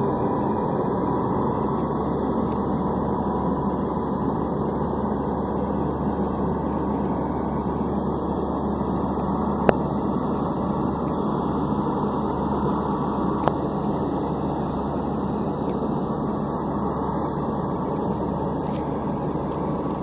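Crawler combine harvester's diesel engine running steadily under load as the machine creeps up steel loading ramps onto a truck. Two sharp clanks stand out, about ten and thirteen seconds in.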